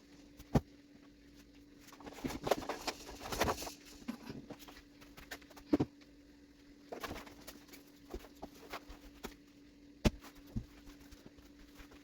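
Scattered clicks, knocks and rustles of household items being picked up and moved, over a faint steady hum.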